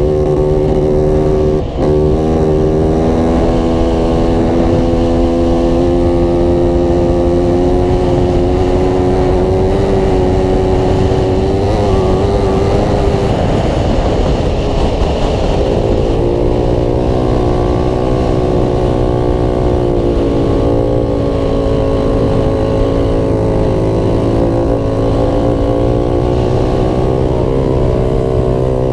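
Quad ATV engine running steadily at cruising speed, heard from on board. There is a brief dip about two seconds in, the note wavers about halfway through, then it settles slightly lower.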